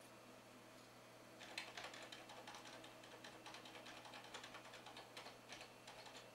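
Computer keyboard key tapped over and over in a quick run of faint clicks, starting about a second and a half in and lasting nearly five seconds. The key is being hammered during boot to enter the BIOS setup.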